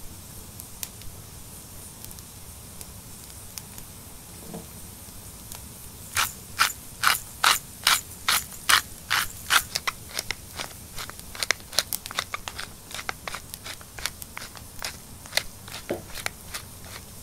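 A spice mill being twisted over a raw ribeye steak: a run of gritty grinding strokes, two to three a second, that starts about six seconds in and trails off into lighter, scattered ones. Before it there are only a few faint crackles.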